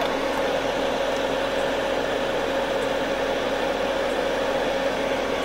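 Steady whirring hum of running appliance fans, with a steady mid-pitched tone through it: a portable induction burner under a cast iron pan, the power station powering it, and a small clip-on USB fan.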